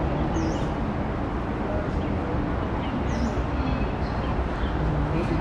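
Steady outdoor background noise with a low rumble, and a bird giving a short high chirp that dips and rises again, repeated about every three seconds.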